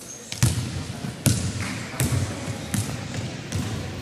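A basketball being dribbled on a wooden gym floor: about five steady bounces, roughly one every 0.8 seconds.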